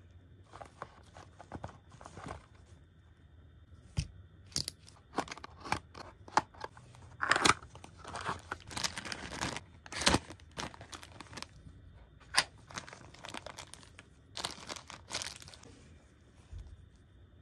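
Cardboard box and plastic packaging handled by gloved hands: irregular rustling, scraping and clicking, with crinkling and tearing of plastic wrapping as a small collectible figure is unpacked. The handling is busiest and loudest around the middle, then quietens near the end.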